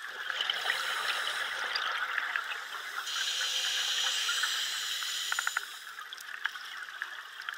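Scuba regulator breathing heard underwater: a steady hiss and bubbling of air, with a stronger, higher hiss about three seconds in that lasts a couple of seconds, and a few quick clicks near its end.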